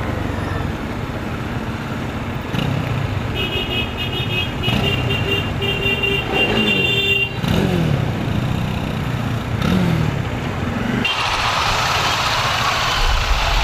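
Bajaj Dominar 400's single-cylinder engine running at low speed in city traffic, its pitch sliding down twice as it slows. A horn beeps repeatedly about three to seven seconds in, and a rushing hiss joins near the end.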